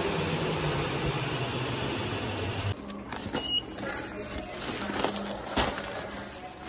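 Subway train running alongside the platform, its motor tone falling, until a sudden cut about two and a half seconds in. Then a ticket gate gives a short high beep as an IC card is read, followed by a plastic bag rustling noisily with a few clicks.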